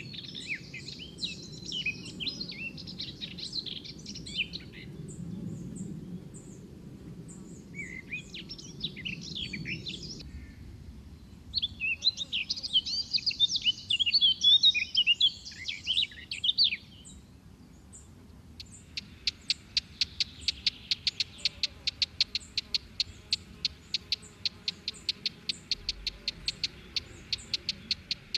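Songbirds singing in bursts of quick, varied chirping phrases, followed about two-thirds of the way in by a rapid, even series of short high notes, about five a second, that runs until near the end.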